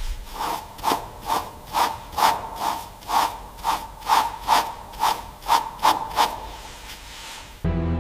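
Stiff bristle brush scrubbing back and forth over painted steel armour plate, an even scratchy stroke about twice a second. Music cuts in near the end.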